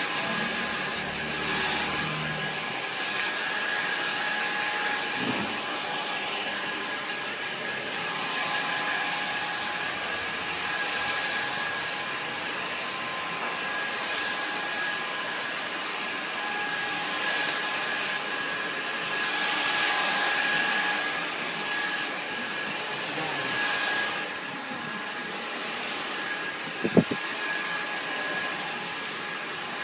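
Hand-held hair dryer blowing steadily, its airflow rush carrying a thin high motor whine and swelling and fading as it is moved. A single sharp click near the end.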